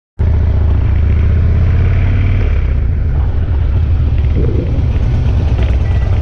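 Harley-Davidson Dyna's V-twin engine running steadily at low revs through its aftermath exhaust, cutting in abruptly a moment in.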